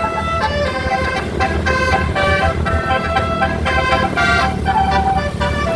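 Indonesian bus 'telolet' horn, a multi-note air horn, playing a quick tune of short stepping notes over a steady low engine rumble.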